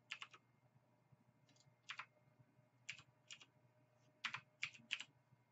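Faint, scattered clicks of a computer keyboard and mouse, about nine short clicks in small groups, as shortcut keys are pressed.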